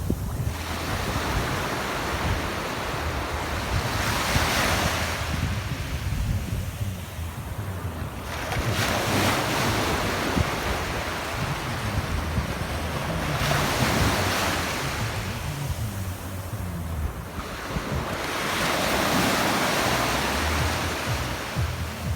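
Sea waves washing in, the surf noise swelling and easing about every five seconds, with wind rumbling on the microphone.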